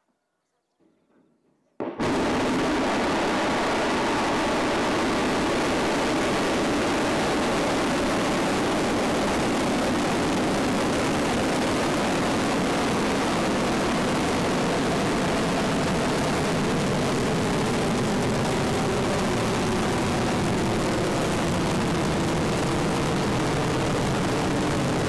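Long March 2C rocket's hypergolic first-stage engines firing at liftoff. A loud, steady noise starts suddenly about two seconds in and holds as the rocket climbs.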